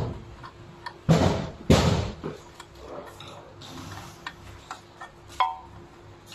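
Handling noise from small plastic parts on bubble wrap. Two loud crinkling rustles come about a second in, then scattered sharp clicks and a short, slightly ringing click about five seconds in.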